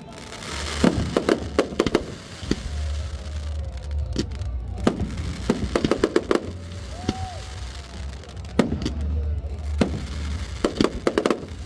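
Aerial fireworks bursting in volleys of sharp cracks every second or two over a steady low rumble.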